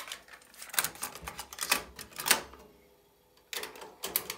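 Mechanical clicks and clunks from a Kenwood KX-67W dual cassette deck's controls and tape mechanism as they are worked: a quick run of clicks from about a second in to past two seconds, then a shorter cluster near the end.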